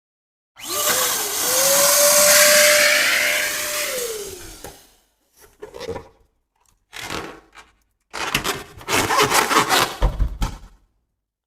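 Air rushing through a rubber balloon's neck with a whistling tone that rises, holds and then falls away over about four seconds. Then three bouts of quick squeaking and rubbing of balloon rubber, the last and longest with a dull low thump in it.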